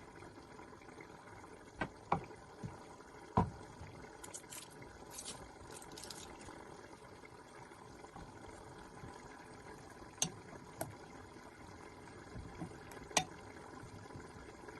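Kitchen sounds: a handful of sharp knocks, as of a utensil against a pan or dish, over a low steady hiss, with a short stretch of light scraping between them.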